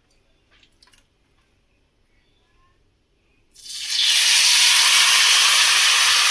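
Hot refined oil in a kadai sizzling loudly as a whole marinated chicken is laid into it, starting suddenly about three and a half seconds in and holding as a steady hiss. Before it, only a few faint handling clicks.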